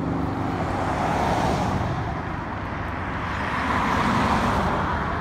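Highway traffic: a steady rush of tyre and engine noise from passing cars, swelling about a second in and again around four seconds as vehicles go by.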